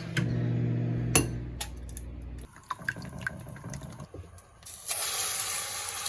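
A steady mechanical hum with a few clicks, followed by scattered clicks and taps. About five seconds in, water starts running steadily from a kitchen tap.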